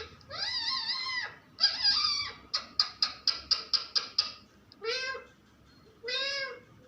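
Pet parrot vocalising: two long warbling calls, then a quick run of about ten short notes, then two short separate calls about a second apart.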